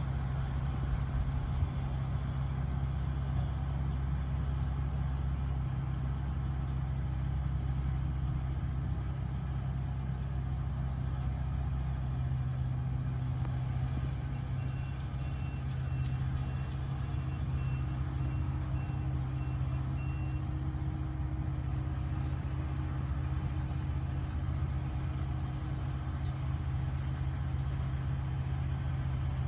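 Steady low rumble, like an idling engine or machine hum, with no clear change throughout.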